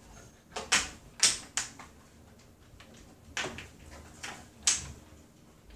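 Wooden puzzle pieces clacking against a wooden form board and the tabletop: several sharp knocks at irregular intervals.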